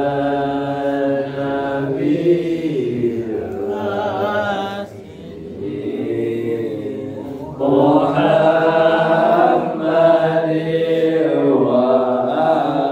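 Voices chanting a devotional Islamic song together in a melodic, sung line, dipping briefly in the middle and swelling again.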